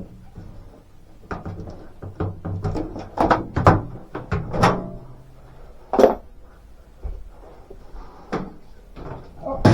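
A series of irregular knocks and clunks, about a dozen, like hard parts or panels being handled and set down.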